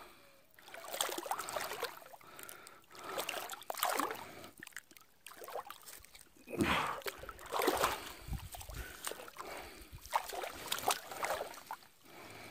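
Water splashing and dripping as a cast net is pulled in by hand and gathered up out of the water, in irregular bursts with a louder pair of splashes a little past halfway.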